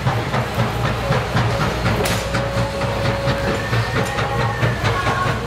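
Passenger coaches rolling past and away: a steady low rumble of steel wheels on the rails, with the wheels ticking over the rail joints.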